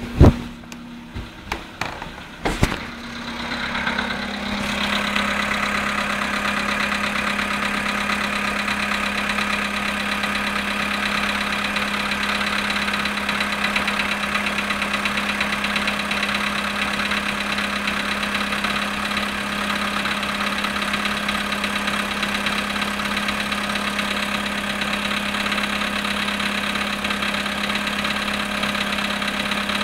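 Volkswagen Polo sedan engine starting from cold after a few sharp clicks, then idling steadily with a fast, even knocking, the cold-start engine knock the owner is recording.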